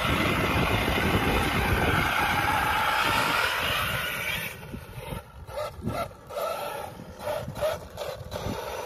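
Traxxas Sledge electric RC monster truck driving on grass: its brushless motor and drivetrain run steadily with the tyres on turf for about four seconds, then the sound drops to quieter, short stop-and-go bursts.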